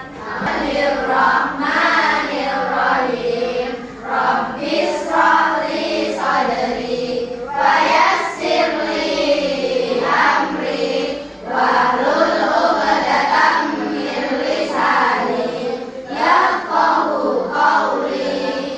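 A class of schoolchildren reciting a prayer aloud together in unison, pausing briefly a few times between phrases.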